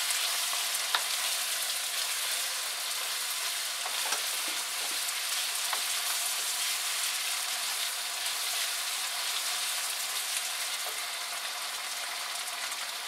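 Chicken pieces in sauce sizzling steadily in a hot wok, stirred with a wooden spatula that gives a few light knocks and scrapes against the pan.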